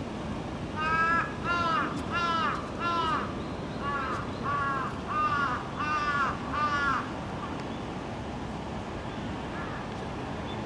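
A crow cawing: nine harsh caws, a run of four and then, after a short pause, a run of five, ending about seven seconds in.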